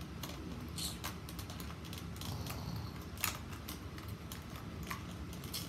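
Handling noise from a toy T-Rex being worked in the hands: scattered light clicks and rubbing, with one sharper click about three seconds in.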